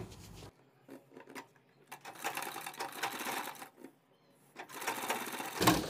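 Black domestic sewing machine stitching a seam in two runs of about two seconds each, with a short pause between them and a few light clicks before the first.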